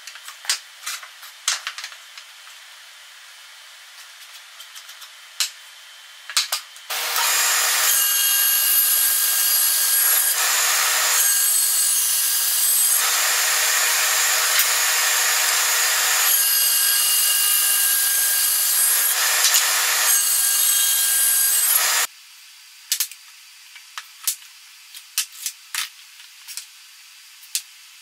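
Band saw running and cutting wood: a loud, steady sound that starts about seven seconds in and cuts off suddenly about fifteen seconds later. Before and after it, light clicks and knocks of quick-grip bar clamps and wood blocks being handled on a workbench.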